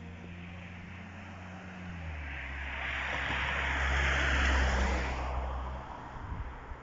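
A motor vehicle going past close by: a steady low engine hum, with engine and road noise swelling to a peak about four to five seconds in and then fading away.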